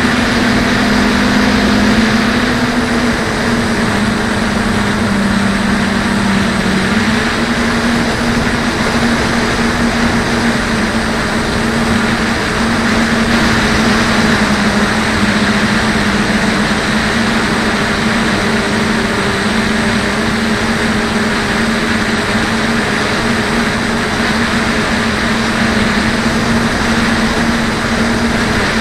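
DJI Flame Wheel 450 quadcopter's electric motors and propellers running in flight, heard from its onboard camera: a steady hum over a rushing hiss, its pitch shifting a little now and then as the throttle changes.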